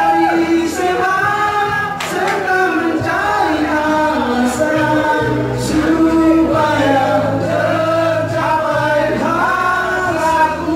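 A song with several male voices singing together over a steady bass line.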